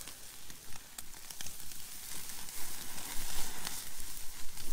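Steaks, shrimp and lobster sizzling on a grill grate over a campfire: a steady hiss with a few sharp pops, getting louder in the last couple of seconds.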